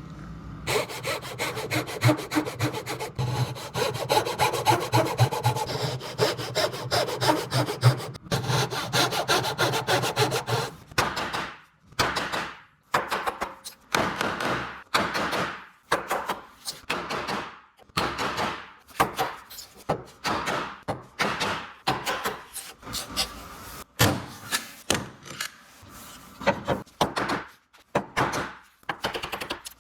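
Japanese dozuki pull saw cutting wood by hand. Quick, short strokes fill the first part, then the strokes slow to a regular rhythm of about one a second.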